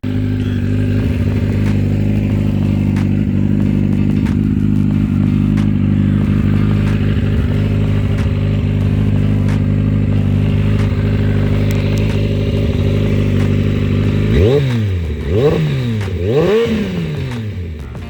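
Kawasaki ZX-14 inline-four motorcycle engine with a dual Voodoo exhaust, idling steadily. Near the end it is blipped three times in quick succession, each rev rising and falling back to idle.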